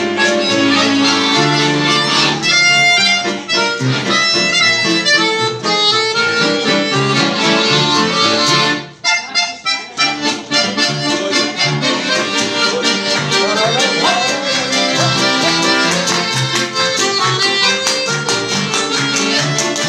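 Guerrini chromatic button accordion playing a lively, rhythmic tune, accompanied by a strummed nylon-string classical guitar. The music breaks off briefly about nine seconds in, then carries on.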